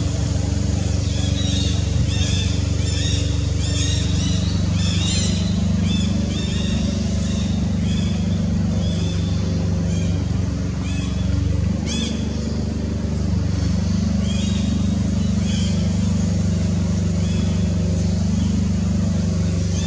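A steady low engine hum, shifting slightly in pitch about twelve seconds in, with many short high chirps over it.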